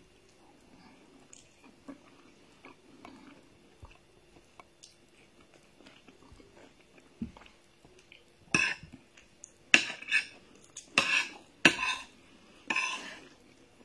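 Metal spoon scraping and clinking against a plate while scooping rice: faint small clicks at first, then about six loud, short scrapes close together in the second half.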